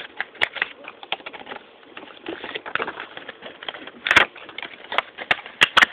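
Hard clear plastic packaging crackling and clicking as it is handled and pried open by hand: a run of irregular sharp clicks, busiest about four seconds in and near the end.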